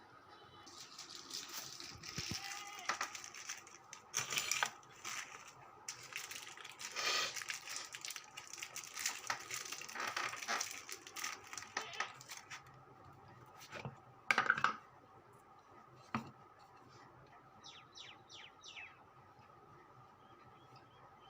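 Small metal parts and hand tools being handled during motor repair work: scattered clinks, taps and rustling. The loudest clatter comes about two thirds of the way in, and a faint steady hum runs underneath.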